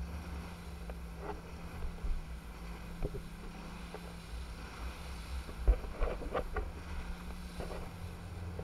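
Wind and water rushing past the camera as an inflatable banana boat is towed at speed through spray, over a steady low hum. A few brief sharp sounds come about six seconds in.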